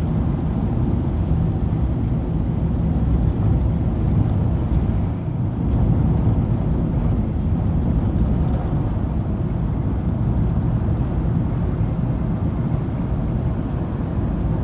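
Ford Transit van driving steadily at road speed, heard inside the cab: a constant low rumble of engine and studded tyres on an icy road, with some wind noise.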